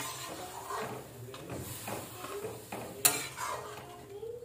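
Metal spatula stirring a watery potato curry in a metal kadhai, scraping along the pan, with a sharp clank against the pan at the start and a louder one about three seconds in.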